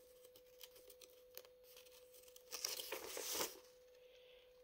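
Faint rustling and crinkling of a folded paper sheet being handled, louder for about a second near the middle, over a faint steady hum.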